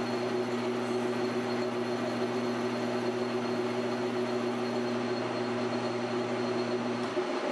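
PM1236T metal lathe running with the spindle turning, a steady machine hum with a faint high whine. About seven seconds in, the lowest part of the hum drops away.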